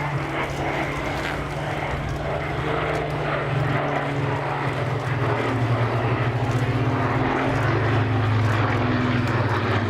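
Propeller aircraft engine droning steadily overhead, growing louder about halfway through.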